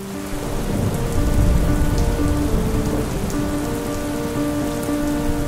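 Steady heavy rain falling, with a low rumble of thunder, strongest between one and two seconds in. A slow melody of held notes plays along with it.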